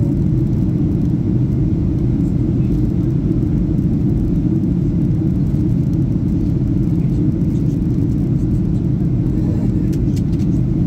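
Steady low rumble of an airliner's engines and airflow heard from inside the passenger cabin, with a few faint ticks near the end.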